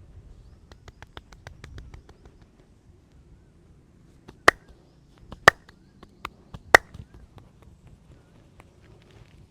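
Hand percussion of a traditional Indian head massage: a quick run of light taps, about seven a second, then three loud, sharp hand claps about a second apart, with a softer one before the last.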